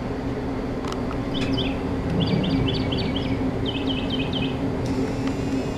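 A songbird singing a long song of quick, repeated chirping notes, several a second in short runs, starting about a second and a half in, over a steady low hum. Loud and persistent: "going ham", "singing a serious song".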